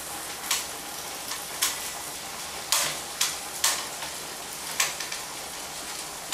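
Food being handled at the kitchen counter: about six short scrapes or rustles over a steady low hiss.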